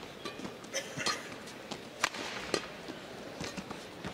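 Badminton rally: sharp racket strikes on the shuttlecock, roughly a second apart, with players' footsteps on the court over a low arena crowd background.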